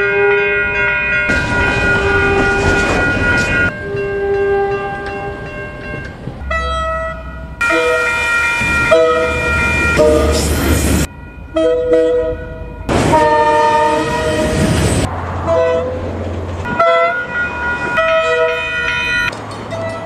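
Diesel locomotive horns sounding a run of separate toots, each a steady chord of several notes, some short and some held for a few seconds. The rumble and clatter of passing trains sits under several of them, and each toot breaks off abruptly into the next.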